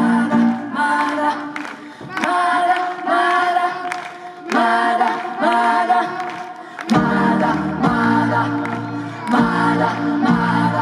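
Two women singing a song together through microphones in held, sustained phrases, with piano accompaniment; a low bass part joins about seven seconds in.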